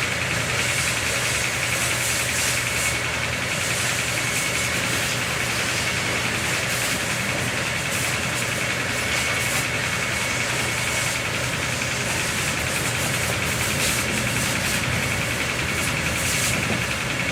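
A motor running steadily, with a constant low hum and a thin high whine, and faint irregular scrubbing scratches over it.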